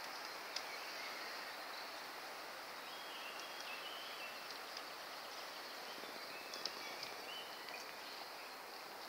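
Quiet forest ambience: a steady even hiss, with faint short whistled bird notes from about three seconds in and a few soft clicks.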